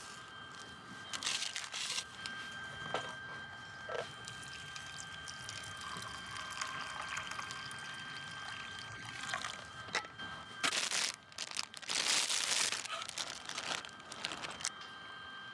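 Liquid pouring in a few short spells, about a second in and twice more near the end, over a faint steady high-pitched tone.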